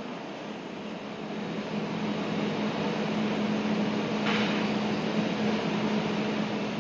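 Indoor shopping-mall ambience: a steady mechanical hum over a hiss of background noise, growing louder midway. There is a short hiss a little past four seconds.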